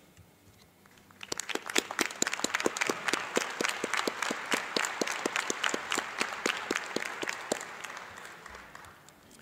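Applause: many hands clapping, starting about a second in, with distinct single claps standing out over the crowd's softer clapping, then fading out near the end.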